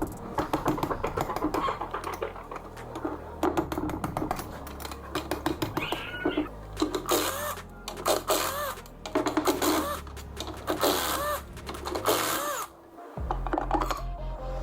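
Background music with a steady beat, a moving bass line and a sliding lead melody.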